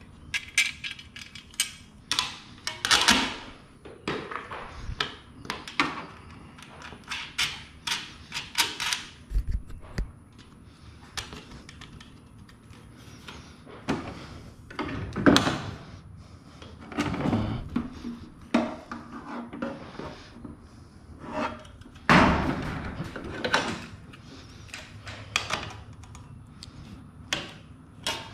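Perforated steel hanger strap and hand tools clinking, rattling and scraping in a series of short knocks as the strap is bolted to a ceiling bracket and bent into place to hang a garage door opener motor.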